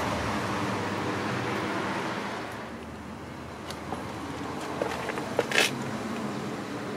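Steady hum of distant road traffic, easing off after about two and a half seconds. Over it come a few faint clicks and one short, sharp crackle about five and a half seconds in.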